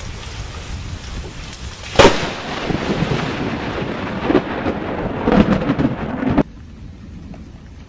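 Thunder from a close lightning strike: a sharp crack about two seconds in, followed by a rolling rumble over steady rain, which cuts off abruptly about two-thirds of the way through.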